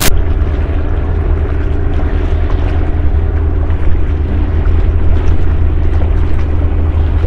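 Steady, loud low engine drone with a constant hum. A sharp click right at the start.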